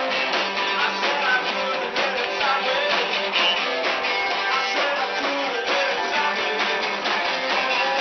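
Live rock-and-roll band playing: electric guitars strumming over a drum kit with a steady beat.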